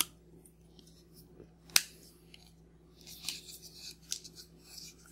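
Hard plastic parts of a Play-Doh toy press being handled and fitted together: a sharp plastic click at the start, a louder one a little under two seconds in, then a run of small clicks and rustling over the last two seconds.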